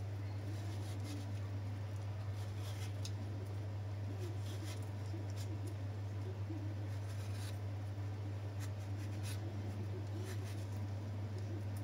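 A firm mango being peeled: irregular short scraping strokes of the blade across the skin, over a steady low hum.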